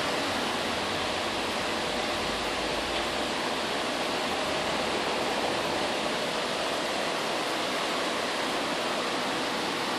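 Steady, even hiss with a faint hum underneath; no barks or yelps.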